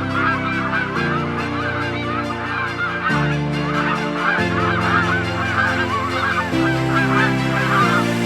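A flock of geese calling, with many overlapping honks that stop about half a second before the end. Underneath is background music of held chords that change every second or so.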